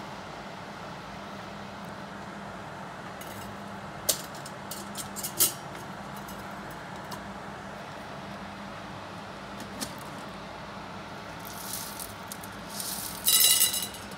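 Coffee bean cooler's fan running with a steady hum, with a few light clicks of roasted beans. Near the end, roasted coffee beans clatter loudly as they are poured into a metal storage canister.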